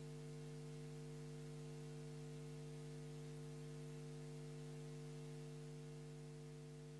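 Steady electrical hum on the live broadcast audio feed: a low, unchanging drone made of several fixed tones, with a faint hiss above it.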